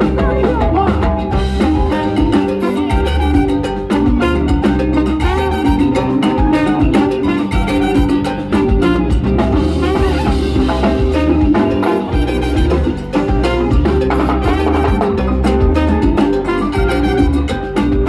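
Live Latin band playing a salsa-style instrumental passage with horns and percussion over a steady beat.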